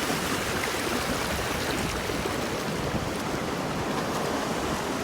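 Steady rushing of seawater, surf washing over and draining off shoreline rocks.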